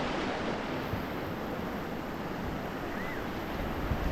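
Fast-flowing river water rushing steadily, the even roar of rapids.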